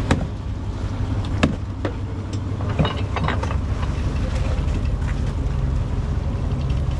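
Fishing boat's engine running steadily, with a few sharp knocks over it in the first half.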